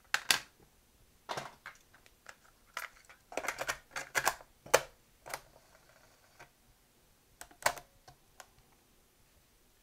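Irregular plastic clicks and clatter from a 1970 Sony TC-120 cassette recorder as a cassette is lifted out of the open compartment, another is pushed in and the lid is snapped shut. There are a few more clicks near the end as the tape counter is worked.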